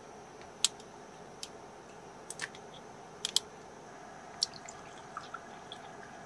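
A plastic makgeolli bottle and cup being handled: several sharp clicks and taps spread over a few seconds, and a few drips of liquid near the end, over a steady low hum.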